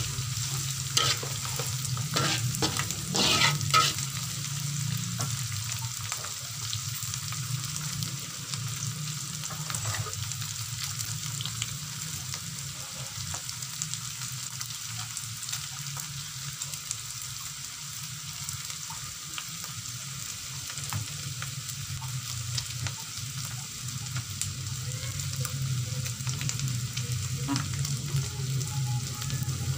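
Dried anchovies and green chilies sizzling in oil in a wok, with a metal spatula scraping and knocking against the pan a few times in the first four seconds, then a steady sizzle.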